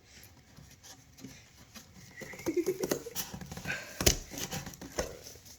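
Scissors cutting through card: a run of crisp snips and crunches, with a louder sharp knock about four seconds in.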